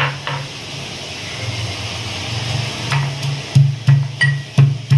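Pestle pounding garlic, green chillies and black cumin seeds into a paste, sharp strikes coming about three a second from about three seconds in, with one or two earlier knocks. Background music plays throughout.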